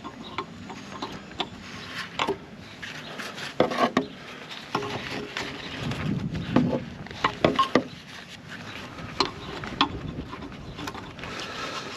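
Hands and tools working a rubber exhaust hanger ring on the exhaust of a Mercedes W201 190D: irregular clicks, knocks and scraping of metal and rubber, busiest about halfway through.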